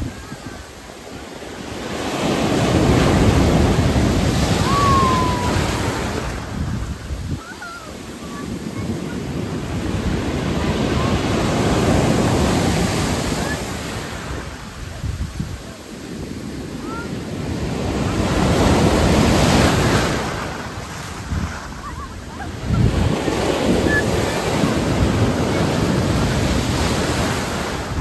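Storm surf breaking on the shore: a loud rush of water that swells and falls back about four times as successive waves crash in and wash up as foam.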